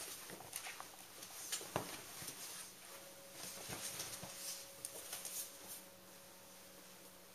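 Golden retriever puppy's claws clicking and scrabbling irregularly on a hardwood floor as it tugs at a cushion. The clicks grow sparser near the end.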